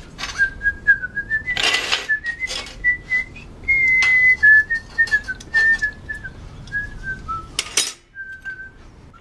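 A person whistling a wandering tune, with steel tubes clinking and knocking against a steel table as they are handled; two sharper metal knocks stand out, one about two seconds in and one near the end.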